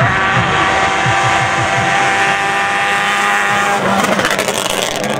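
Rally car engine held at high, steady revs for about four seconds, then a rougher, crackling stretch near the end.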